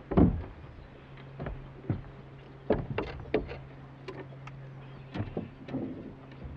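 Knocks and clatter in a jon boat as a freshly landed catfish and the landing net and tackle are handled, with a loud thump about a quarter second in, over a steady low hum.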